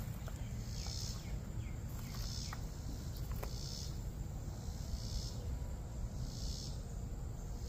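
Insects buzzing, a high chorus that swells and fades about every second and a half, over a steady low rumble with a few faint clicks.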